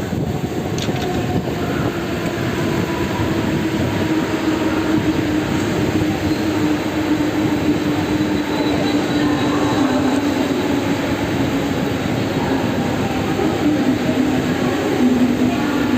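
Mumbai local electric multiple-unit train running, a steady rail noise with a droning tone that slowly drops in pitch.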